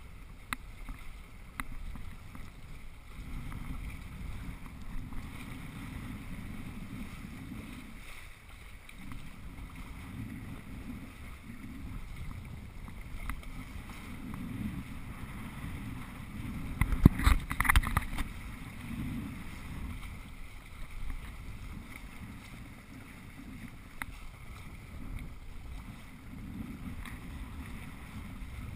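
Wind buffeting the microphone and water rushing along the hulls of a Hobie Cat 21 sailing catamaran under way, a steady low rumble. About 17 seconds in there is a brief, louder cluster of thumps.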